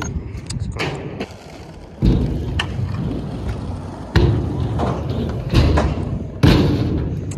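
Stunt scooter's wheels rolling on a skatepark ramp, with four hard thuds of the scooter hitting the ramp about a second or two apart. The last thud, about a second before the end, is the scooter landing a briflip.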